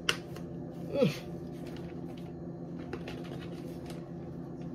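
A woman gives a short falling "mm" hum about a second in, over a steady low electrical hum, with a few light clicks as a spice bottle is handled over a plastic bag.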